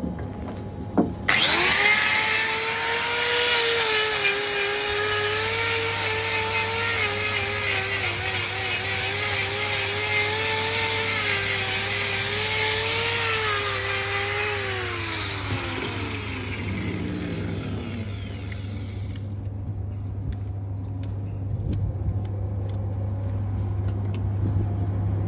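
A power tool's motor starts about a second in and runs with a steady whine for around thirteen seconds. It is then switched off and winds down, falling in pitch over a few seconds. A steady low hum runs underneath from about five seconds in.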